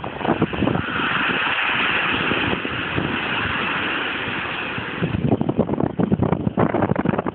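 Renault 370 truck's engine running while its tipper trailer stands raised to dump its load, with wind buffeting the microphone. The sound is steadier and smoother from about one to five seconds in, and gusty before and after.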